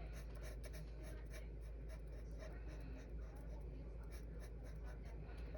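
Quick, irregular strokes of a colouring tool scratching on paper as an image is being coloured in, over a low steady hum.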